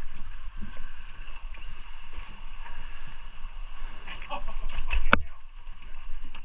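Water lapping against a small boat's hull, with a steady low wind rumble on the microphone. About five seconds in come a few sharp knocks on the boat, the loudest a single hard click.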